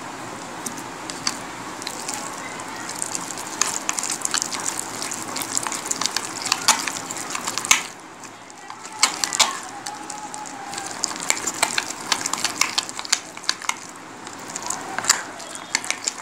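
Wet squelching and slapping of a hand beating thick ground urad dal (biuli dal) batter in a glass bowl, with quick irregular clicks, pausing briefly about eight seconds in.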